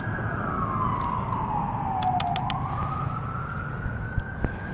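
Emergency-vehicle siren in slow wail: its pitch falls over about two seconds, then rises again. A few faint clicks come about halfway through.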